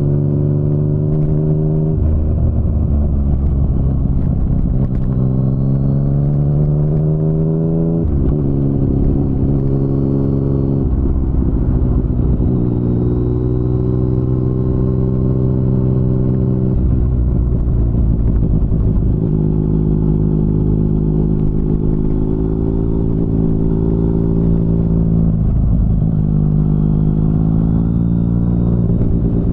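2019 Yamaha MT-09's inline three-cylinder engine breathing through an Akrapovic carbon full-system exhaust, pulling under throttle. Its note climbs for several seconds and drops sharply at a gear change about eight seconds in, then holds steadier with small rises and falls.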